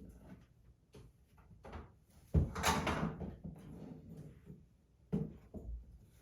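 Handling noises: a scatter of light clicks and knocks, with a longer, louder rattling clatter about two and a half seconds in, like something being taken out of a drawer or case.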